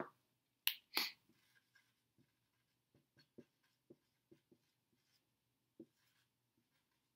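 Dry-erase marker writing on a whiteboard: two short, louder swishes about a second in, then a string of faint short ticks and strokes as symbols are written.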